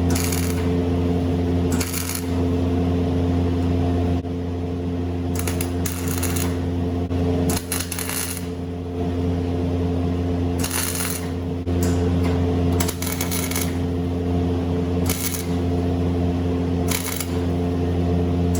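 Welder running, with short bursts of crackling every second or two over a steady electrical hum, as tack welds are laid on thin fender sheet metal that still has gear oil in it.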